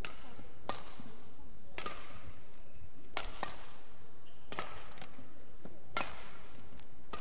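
Badminton rackets striking a shuttlecock in a warm-up rally, a string of sharp hits about one every second and a half.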